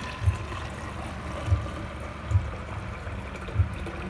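Boiled sweet potato leaf water being poured into a plastic bottle, a steady pour as the bottle fills. A low thud repeats about once a second beneath it.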